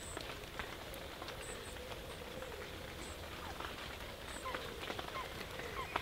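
Quiet woodland ambience: a low steady hiss with scattered faint ticks and a few faint, high bird chirps.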